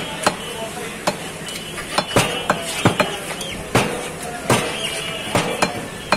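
A large butcher's knife chopping beef on a wooden tree-stump block: a string of sharp chops at uneven spacing, about ten of them, with market voices behind.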